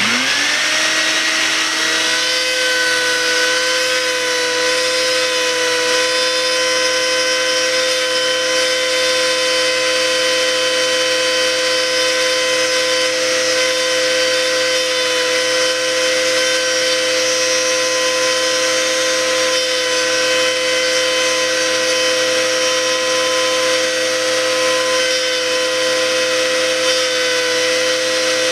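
Handheld electric rotary tool spinning up over the first couple of seconds, then holding a steady whine as its bit grinds into a gelcoat crack, opening it up so the epoxy patch has more to grab onto.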